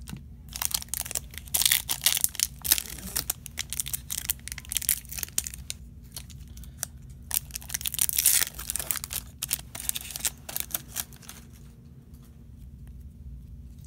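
Foil wrapper of a baseball card pack crinkling and tearing as it is ripped open by hand, with loud bursts of crackling about two seconds and eight seconds in, then dying away near the end.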